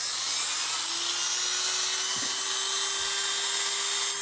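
Handheld rotary tool running at high speed with a small burr cutting into a wooden knife handle: a steady high-pitched hiss of the bit in the wood with a steady motor tone.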